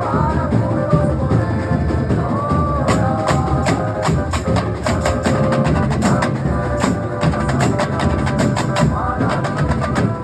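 A carnival comparsa's percussion section playing: drums, bass drums and sharp wood-block-like clicks in a steady rhythm, with a pitched line above.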